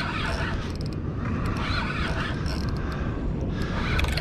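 Steady low rumble of wind and water around an open boat at sea, with patches of hiss coming and going and a few faint ticks.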